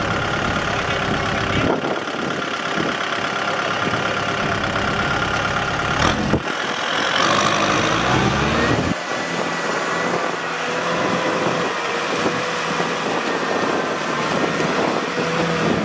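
Kubota M6040 tractor's diesel engine running steadily under load while it drives a rotary tiller, the sound shifting abruptly a few times.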